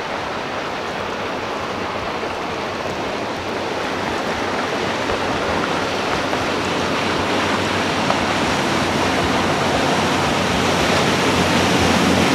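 Express cruiser running at speed: a steady rush of hull spray and wake water that grows louder as the boat comes closer, with the low drone of its engines coming up near the end.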